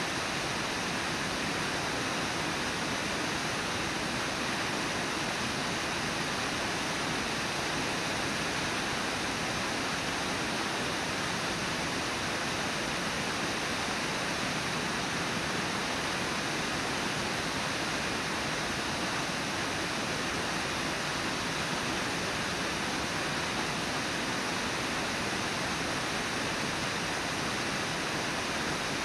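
Brooks Falls, a low river waterfall, pouring over its lip and rushing through the rapids below: a steady, even rush of white water with no breaks.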